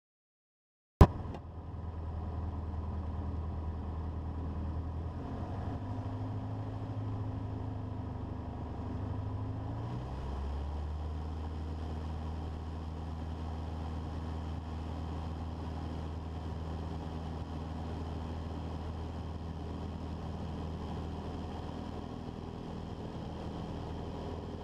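Single-engine light aircraft's piston engine and propeller running at taxi power, heard from the cockpit; the sound cuts in with a sharp click about a second in. The engine pitch climbs slightly and shifts about ten seconds in, then runs steady.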